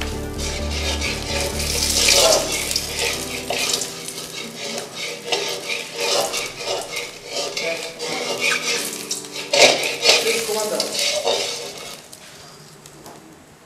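Metal ladle stirring and scraping in a steel wok, clinking against the pan in irregular strokes. The strokes grow quieter near the end.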